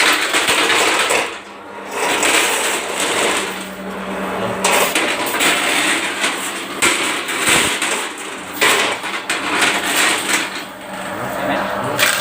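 Drain-cleaning machine running, its cable rattling and knocking in the pipe, with brief dips about a second and a half in and again near the end.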